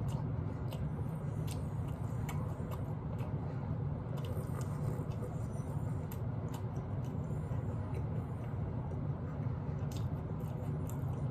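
Chewing and gnawing meat off a barbecue pork rib: scattered small wet mouth clicks and smacks, over a steady low background hum.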